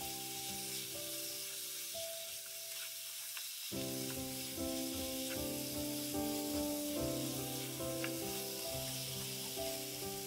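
Raw chicken pieces sizzling in hot ghee and fried onions in a nonstick wok, stirred with a plastic slotted spatula, with a few light scrapes and clicks. Soft background music with sustained notes plays underneath.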